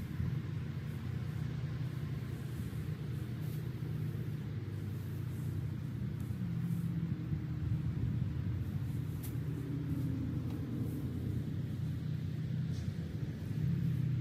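A motor vehicle's engine running steadily, an even low rumble.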